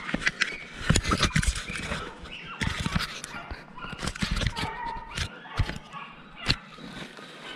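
Rustling and repeated knocks of a body-worn camera rubbing against an orange hunting jacket as the wearer pushes through undergrowth, with hunting dogs barking at times.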